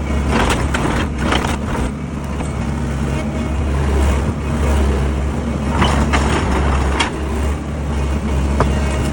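Sany SY60 mini excavator's diesel engine running steadily with a low hum, with occasional short knocks.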